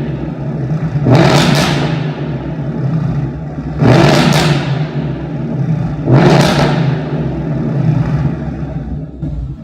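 Ford Mustang with a Roush axle-back exhaust and H-pipe held on its two-step launch-control limiter at 3000 rpm. The engine runs at steady revs, and three loud bursts of crackles and pops come from the exhaust about two and a half seconds apart as it bounces off the limiter.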